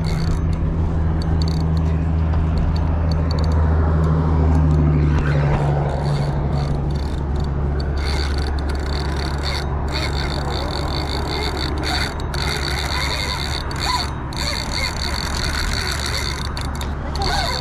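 Steady low engine drone of vehicle traffic, loudest in the first five seconds. Over it, from about eight seconds in, a high buzzing from a large Penn spinning reel and line being worked against a hooked nurse shark comes and goes.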